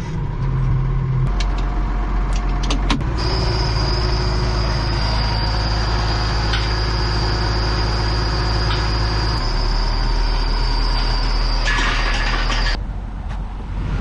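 Ford TW-20 tractor's turbocharged six-cylinder diesel engine running steadily, heard from inside the cab, with a few clicks in the first three seconds. A thin high whine runs over it from about three seconds in until near the end, when the engine sound turns quieter.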